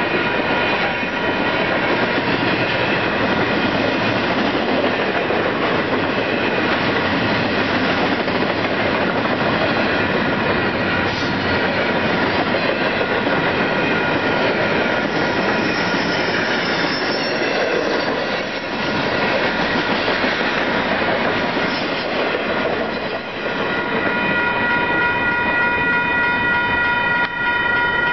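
Freight train of intermodal well cars rolling past a level crossing: a steady rumble and clatter of wheels on rail. Steady ringing tones run underneath, which come through most clearly near the end.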